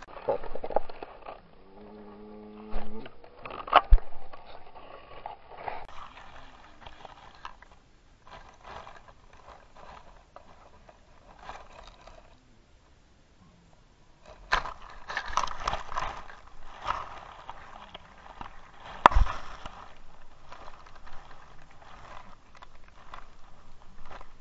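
Scraping, rustling and scratching on a GoPro camera lying in grass as a furry animal noses and paws at it. There is a sharp knock about four seconds in and another around nineteen seconds, with a quieter stretch in the middle.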